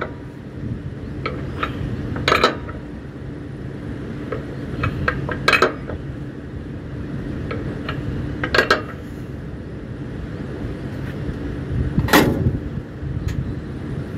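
Metal-on-metal clanks: a sharp strike about every three seconds with lighter clinks between, over a steady low rumble.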